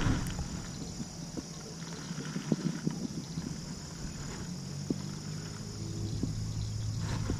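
Steady high-pitched chorus of insects, with a few faint clicks and knocks scattered through it.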